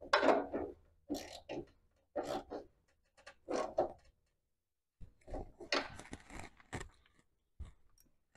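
Wrench tightening a half-inch fastener behind a welder's side panel: short clusters of metal clicks and scrapes about once a second, with a brief stop midway.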